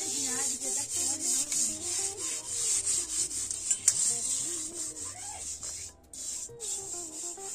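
A hand scrubbing the outside of a soot-blackened cooking pot, a run of repeated rasping strokes, with one sharp tap against the pot about four seconds in.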